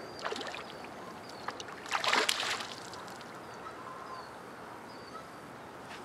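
A hooked fish splashing at the surface beside a small fishing boat as it is reeled in. There is a short burst of splashing about two seconds in, with a smaller one at the start, and a few faint chirps behind.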